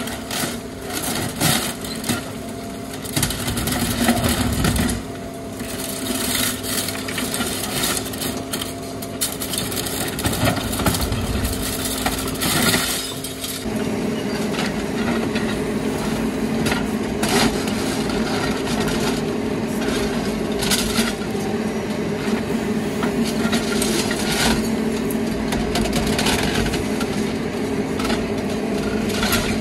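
Menzi Muck M545x walking excavator running, its demolition grapple breaking up reinforced concrete: irregular cracks, crunches and clinks of concrete chunks and steel rebar over the steady hum of the engine and hydraulics. The hum grows louder about halfway through.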